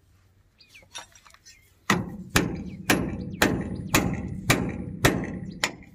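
A hammer strikes a steel chisel held against a bolt on a thresher's bearing housing, metal on metal, starting about two seconds in with about two ringing blows a second. The bolt is being chiselled off to change a broken bearing.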